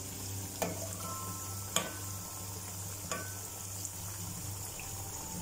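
Banana flower vadai deep-frying in hot oil with a steady sizzle, the fritters cooked and being lifted out. A perforated steel spoon clicks lightly against the pan three times.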